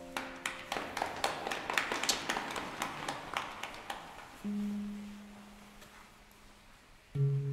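Handpan played by hand: about four seconds of quick, light percussive taps on the steel shell, then a single low note rings out and fades, and near the end a louder, deeper note is struck and rings.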